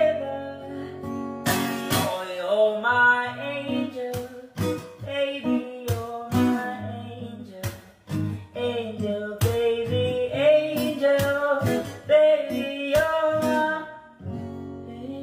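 A man singing a song over acoustic guitar strumming. The voice stops near the end, leaving the guitar chord ringing.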